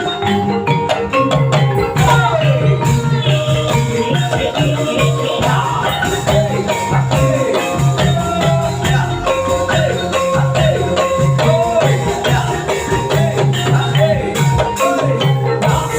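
Kuda lumping ensemble music: metallophones and drums keep a steady, even beat under many sharp percussive strokes, with a wavering, gliding melody line above.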